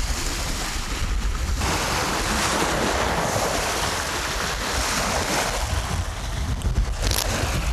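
Strong storm wind buffeting the microphone with a low rumble, over waves washing on a reservoir.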